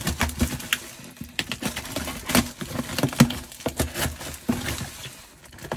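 Plastic parcel wrapping and tape being slit and torn open over a cardboard box with a small hand-held safety cutter: irregular crinkling, rustling and tearing, with small knocks and scrapes against the box.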